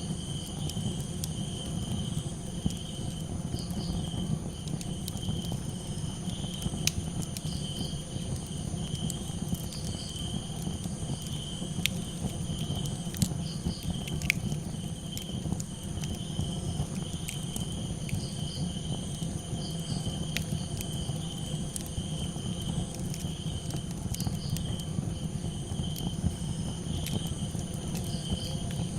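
Crickets chirping steadily over a crackling campfire, with irregular sharp pops and snaps from the burning wood.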